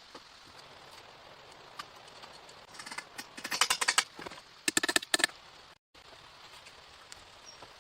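Two quick runs of sharp, rapid clicking and tapping over a faint steady hiss, starting about three seconds in and ending a little past five seconds.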